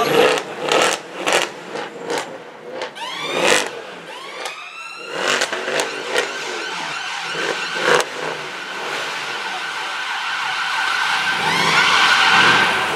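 Sports-car engines revving in traffic with sharp throttle blips and rising revs. Near the end, a BMW M3 V8 revs up as it pulls past.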